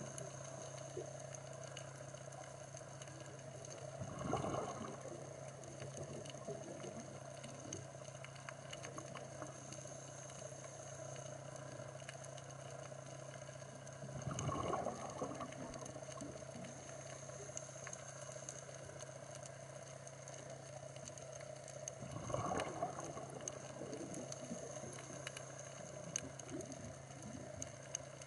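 Underwater recording on a coral reef: a scuba diver's exhaled bubbles gurgle past in three bursts of about a second each, some eight to ten seconds apart. Between them there is a steady hum and constant faint crackling.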